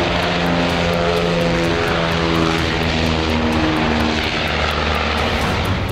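Martin Mars flying boat's four radial piston engines and propellers running at power in a low pass, a dense steady drone with a slight shift in pitch as it goes by.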